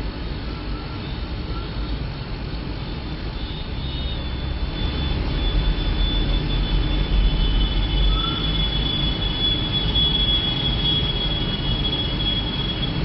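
Engines of sand-laden tractors rumbling as they drive through, louder near the middle, with a thin steady high whine over the second half.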